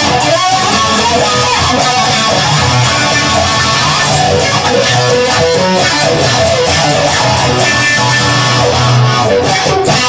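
Instrumental guitar music led by an electric guitar, with no singing.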